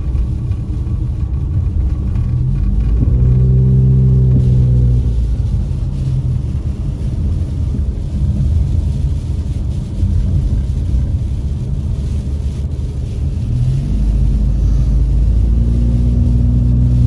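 A car's engine and road noise heard from inside the cabin while driving, a steady low rumble. The engine note swells and rises about three seconds in, and again about fourteen seconds in as the car accelerates.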